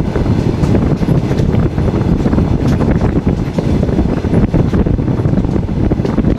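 Loud, uneven wind buffeting on the microphone over the steady rumble of a moving passenger train, with faint ticks throughout.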